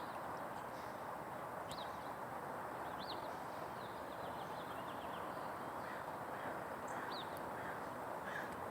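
Small songbirds chirping, a few short high chirps scattered over a steady outdoor background hum.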